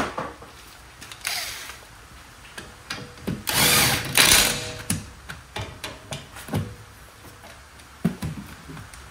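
A socket ratchet clicking in several short bursts, with metal-on-metal clatter, as brake caliper carrier bolts are run in.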